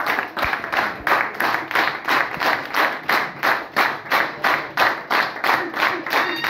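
Audience clapping in unison, a steady beat of about three claps a second.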